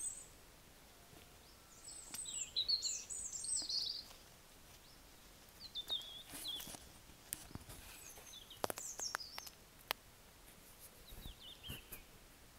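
Small birds chirping: short, high, descending calls in scattered bursts, busiest a couple of seconds in, over faint outdoor background noise. A few sharp clicks come about two-thirds of the way through.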